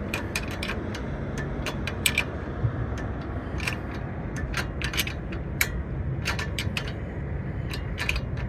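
Hand tools clinking and clicking irregularly against the nut of a sway bar end link, metal on metal, as a socket and wrench are fitted and worked. A steady low hum runs underneath.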